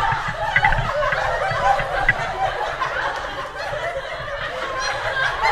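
Several people laughing and chattering at once, with no clear words.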